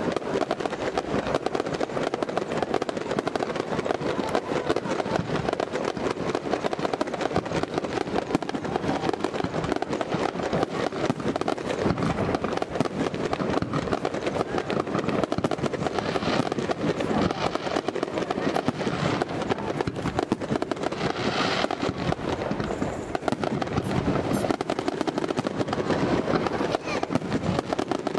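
Fireworks display: a continuous rapid barrage of firework bursts and crackling, many sharp reports each second without a pause.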